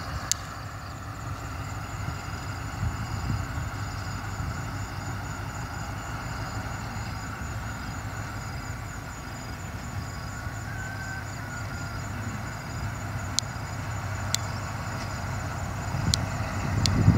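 D10H diesel-hydraulic shunting locomotive's engine running at low throttle as it rolls slowly along the track, a steady low rumble that grows louder near the end as it draws near. A few sharp clicks are heard in the last few seconds.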